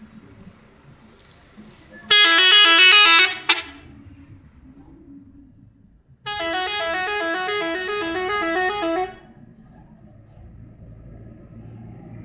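Telolet musical horn of an Indonesian bus, playing its quick stepping multi-note melody in two long bursts. The first is very loud and about a second and a half long. The second is a little quieter and lasts about three seconds.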